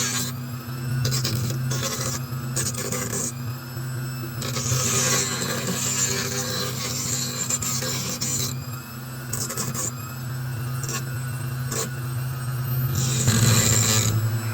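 Grinder motor running steadily while a piece of deer antler is pressed against it in repeated passes, a gritty rasping grind that starts and stops as the antler's corners are rounded off.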